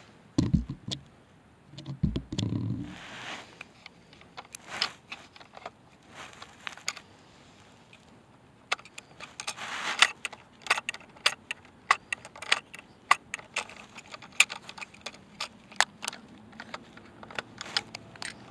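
Small plastic toy trash carts being handled and tipped against a toy rear-loader garbage truck: a run of sharp clicks and taps, denser in the second half, after a couple of low bumps near the start.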